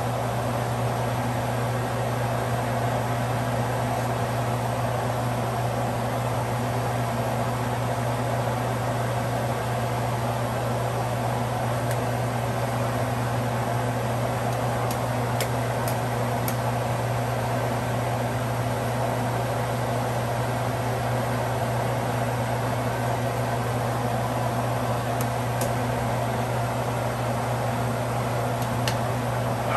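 A steady mechanical whirring hum with a low drone, unchanging throughout. A few light metallic clinks of a ladle against the stainless steel pot.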